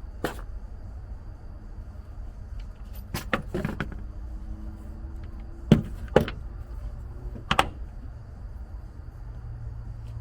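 Scattered sharp clicks and clinks of small metal parts and hand tools being handled during dashboard work, about half a dozen in all, with a short cluster a few seconds in. Under them runs a low, steady rumble.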